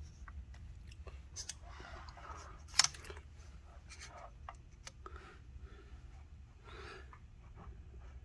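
Metal tools and fixture parts being handled around a camshaft: scattered light clicks and scrapes, with one sharp metallic clack about three seconds in, over a low steady hum.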